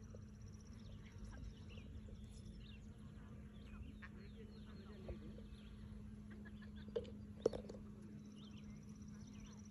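Faint outdoor ambience of birds chirping and calling, over a steady low buzz of bees working the lavender flowers. Two short knocks come about seven seconds in.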